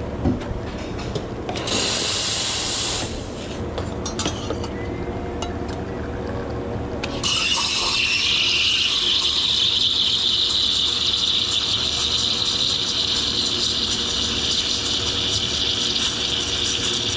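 Espresso machine steam wand: a short blast of steam about two seconds in, then a long steady hiss from about seven seconds in as it steams milk.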